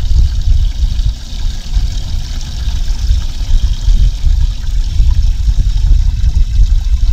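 Water trickling and sloshing in a boat's livewell around a zander being held and revived in it, over a heavy, uneven low rumble.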